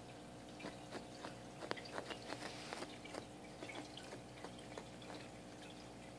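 A ferret digging at carpet under a sofa with its front claws: faint, irregular scratches and clicks, over a steady hum.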